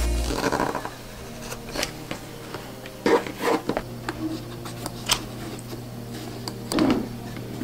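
Background music stops just after the start. Then comes close handling of a suede leather bag and its fabric lining: rubbing and rustling with a few sharp clicks as metal binder clips are fitted to the edges, the loudest about three seconds in and again near the end.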